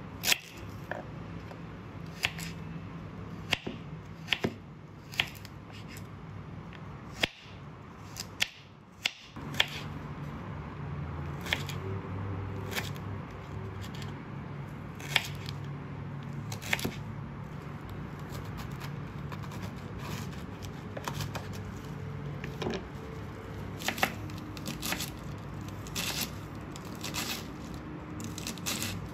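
Ceramic knife cutting a carrot and, near the end, a cabbage on a bamboo cutting board: sharp taps of the blade striking the board, about one every second or so, over a low steady hum.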